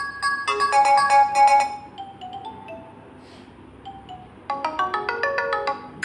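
Lava Blaze 2 phone's speaker playing ringtone previews as tones are picked from the ringtone list. A quick run of bright electronic melody notes comes first and thins to a few held tones. A different melody starts about four and a half seconds in.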